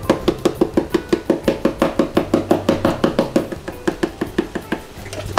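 Disposable plastic pepper grinder being twisted to grind pepper, a fast, even clicking of about seven clicks a second that stops near the end.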